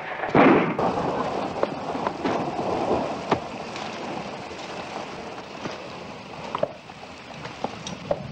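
Steady rain-like hiss with scattered short clicks and knocks, and a louder burst about half a second in.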